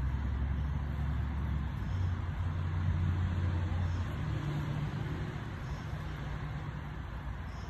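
A motor engine running with a low, steady drone. Its pitch shifts about two and four seconds in, and it eases slightly near the end.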